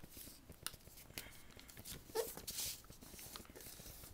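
A sheet of paper rustling and crackling in short bursts as it is folded down and its crease pressed flat by hand.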